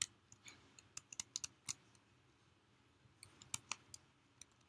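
Faint, sharp clicks of computer keys being pressed, a few scattered single clicks with two quick clusters about a second in and a little past three seconds.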